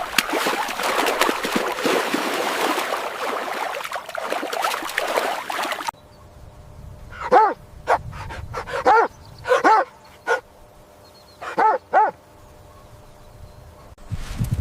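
Animal sounds: a dense, noisy clamour for about six seconds, then a sudden cut to a string of about eight short yelping calls, each rising and falling in pitch.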